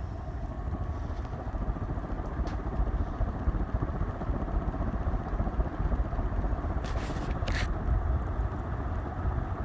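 Antique Peerless (Diehl) ceiling fan running on high speed: a steady whir and rush of air, the fan well balanced with only a very slight shimmy. Two short clicks come about seven seconds in.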